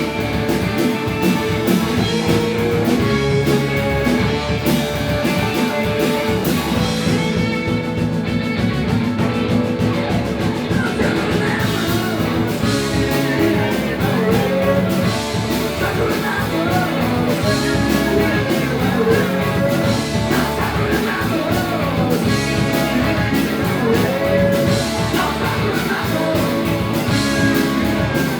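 Live rock band playing: drums keeping a steady beat under guitar chords, with a voice singing over the band from about twelve seconds in.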